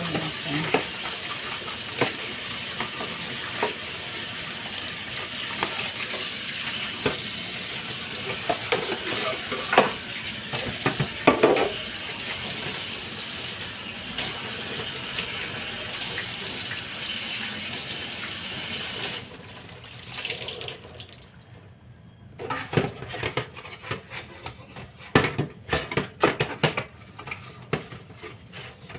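Water running from a sink tap, with knocks and clatters of items being washed under it; the water stops about two-thirds of the way through, leaving intermittent clattering of dishes or containers being handled.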